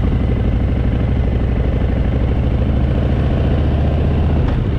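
Harley-Davidson Fat Boy's V-twin engine running at a steady, even note while the motorcycle is ridden.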